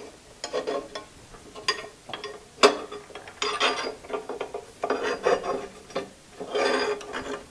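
A steel plate being shifted and positioned by hand on the metal bandsaw base: light metal clinks, a sharp click about two and a half seconds in, and several short spells of metal scraping and rattling.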